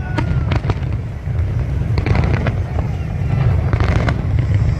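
Fireworks going off: a continuous low rumble of distant bursts with sharp crackling bangs, coming in clusters about two seconds in and again near four seconds in.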